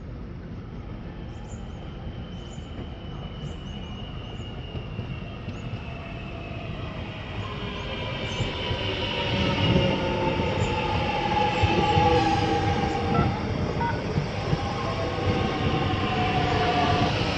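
Metro Trains Melbourne X'Trapolis 100 electric train pulling into the platform and slowing. Its traction motors whine in several tones that fall steadily in pitch as it brakes, over a rumble of wheels on rail. It grows louder from about halfway through as it draws alongside.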